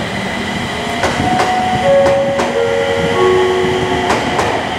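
Aoimori Railway 701 series electric train running past. Its wheels click sharply over rail joints about six times, and steady high tones at several pitches sound one after another near the middle.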